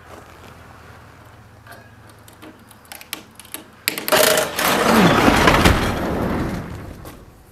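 Box truck's roll-up door, its counterbalance cables cut, being pulled down and running down its tracks with a loud rattle for about three seconds, starting about four seconds in, until it shuts. A few light clicks before it.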